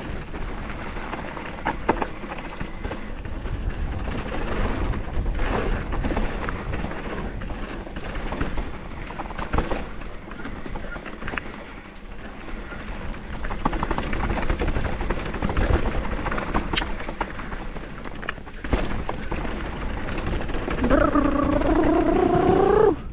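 Mountain bike descending a dirt trail at speed: tyre roar, wind rumble on the camera and scattered sharp knocks and rattles as the bike hits bumps. Near the end, a buzzing hum lasts about two seconds as the bike rolls across a wooden boardwalk.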